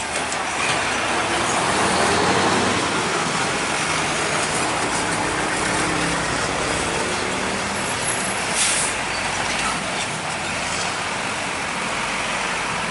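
Heavy diesel trucks running and rolling slowly past, their engine pitch rising and falling as they pull through. A short hiss comes a little under nine seconds in.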